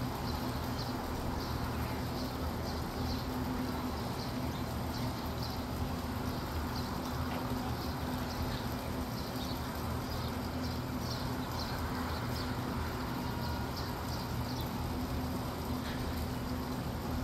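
A steady low mechanical hum that holds the same pitch throughout, with short high chirps scattered through it.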